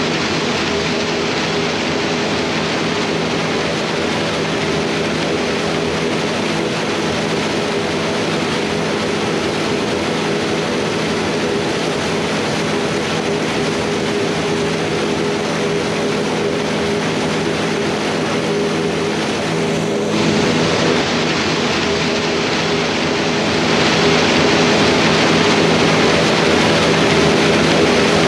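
Heavy farm machinery running steadily: a diesel tractor engine with silage-handling equipment, getting louder and hissier about 23 seconds in.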